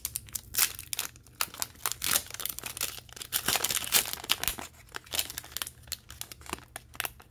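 Foil wrapper of a Pokémon TCG Rebel Clash booster pack crinkling and tearing as it is opened by hand, a dense irregular crackle.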